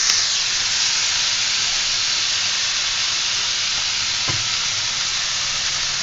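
Freshly added chopped radish leaves sizzling in hot mustard oil in a frying pan: a loud, steady sizzle that swells as they go in. One soft knock about four seconds in.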